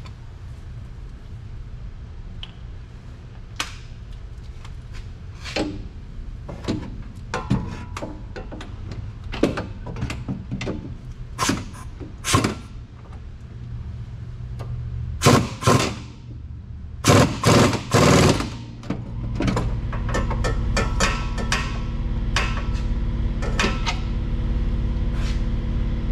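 Irregular metal clicks and knocks of hand-tool work on a car, scattered over a steady low hum. A cluster of louder knocks comes a little past the middle, and the low hum grows louder and heavier about three quarters of the way in.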